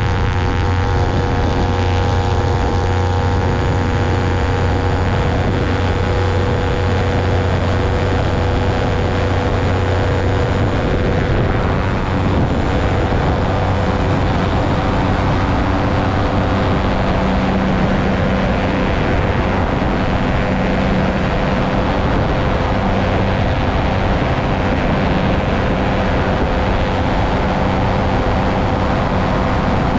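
Engine and propeller of a self-launching motor glider, mounted on a raised pylon behind the cockpit, running steadily as the glider moves along the airfield under its own power. A lower note grows stronger partway through.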